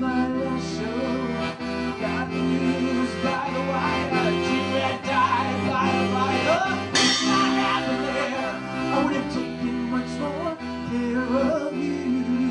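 Accordion music: sustained chords with a melody moving over them, and a sudden bright crash about seven seconds in.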